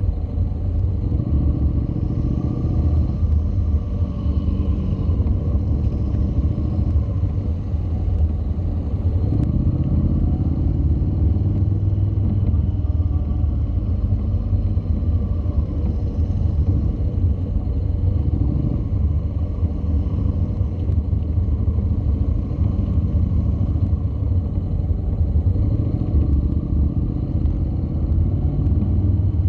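Honda NC700's parallel-twin engine at low speed, its pitch rising and falling every few seconds as the throttle is opened and closed through tight turns, over a steady low wind rumble on the microphone.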